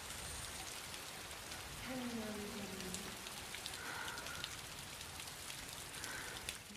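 Steady rain falling, with a short, faint voice sliding down in pitch about two seconds in.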